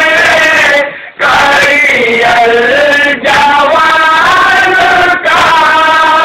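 Men loudly chanting a nauha, a Shia lament: a lead reciter sings long, held, wavering lines while other men sing along. There are short breaks between phrases.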